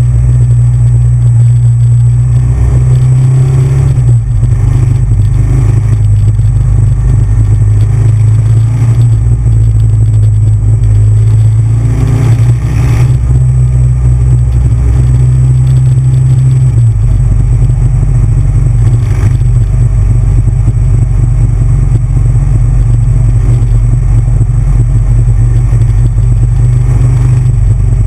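Big Bear Choppers motorcycle's V-twin engine running loud and steady while riding at road speed, with a deep, low engine note. The engine note changes about two-thirds of the way through.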